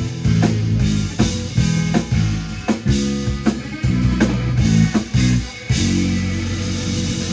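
Live instrumental rock band, with electric guitar, electric bass and drum kit, playing together in accented hits about two to three times a second. Near the end the hits stop and a chord is held.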